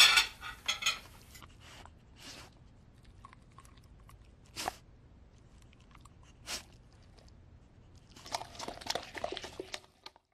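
A large dog eating off dinner plates on a table, crunching and chewing. The loudest burst of eating noise comes in the first second, a few single bites follow, and a thick run of chewing comes near the end.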